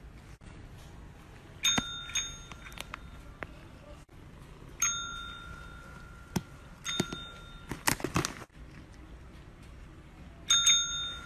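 Green push-button desk call bell dinged by a cat's paw about four times, a few seconds apart, each ding ringing on briefly. A short scratchy burst of noise comes about eight seconds in.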